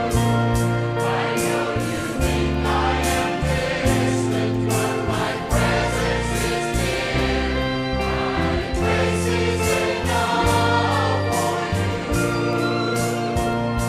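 Large mixed church choir singing a slow worship song, accompanied by an orchestra with a steady, sustained bass line.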